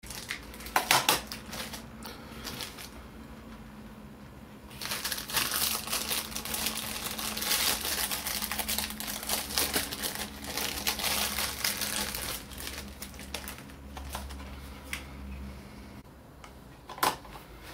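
Handling noise as a watch is picked up and turned over in the hands on paper: crinkling and rustling, densest through the middle, with a few sharp clicks about a second in and one near the end.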